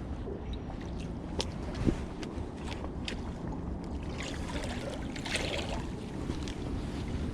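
Steady water and wind noise with scattered light clicks and knocks, one knock louder about two seconds in, and a brief hissing splash-like stretch past the middle.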